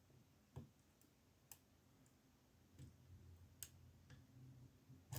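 Faint, sparse clicks of a lock pick and tension tool working the pin tumblers of a small 20 mm Amtech padlock, with light handling noise in the second half.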